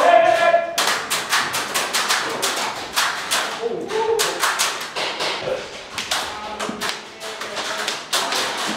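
Airsoft guns firing: sharp pops and clicks, several a second and irregular, as more than one gun shoots.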